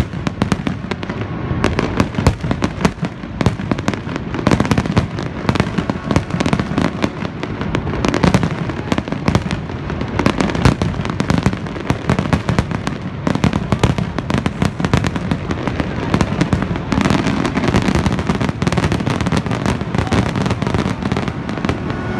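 Fireworks display: many shells bursting in quick succession, dense bangs and crackles overlapping without a break.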